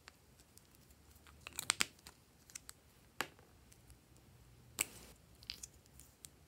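Sharp clicks and taps from handling a metal lipstick case and a pair of scissors: the cap pulled off, the case clicking and the scissor blades clinking. The loudest come as a quick cluster a second and a half in and a single snap near the end.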